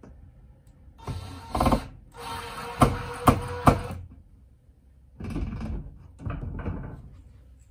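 Cordless drill driving screws into an overhead closet-door track: the motor whines in two runs, the second ending in three sharp clicks, followed by quieter, shorter bursts of noise.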